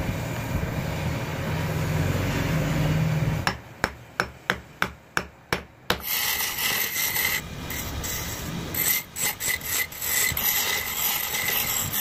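Wood lathe running while a turning chisel cuts a spinning wooden handle blank: a steady scraping hiss over the motor's hum. A few seconds in it turns to a run of short scraping strokes, about three a second, then back to steady cutting.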